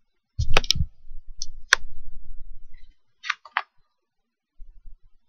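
Photo pages being turned in a ring-binder photobook: a few sharp clicks and taps as the stiff pages shift on the metal rings, over a low handling rumble in the first few seconds.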